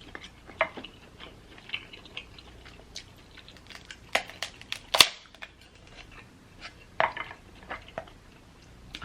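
Close-miked eating of king crab legs: chewing and the clicking of crab shell being handled, with scattered sharp clicks, the loudest about five seconds in.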